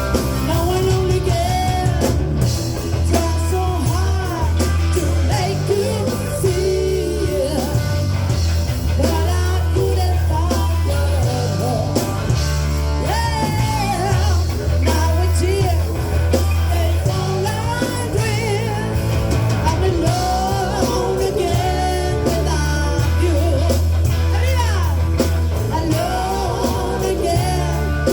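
Live rock band playing a classic cover: a lead singer over electric guitar, drums and a heavy, steady bass line.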